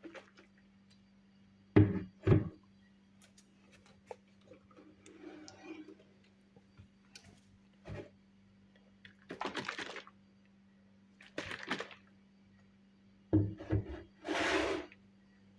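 Kitchen items handled on a counter: two sharp knocks about two seconds in, then scattered clicks and several short scraping noises, over a faint steady hum.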